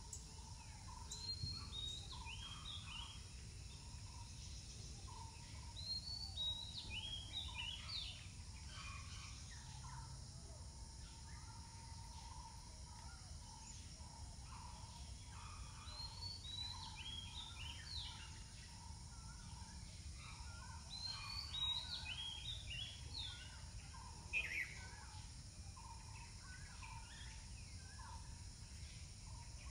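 A songbird calling in bursts of quick, high chirps, a few seconds apart, over a steady low outdoor rumble.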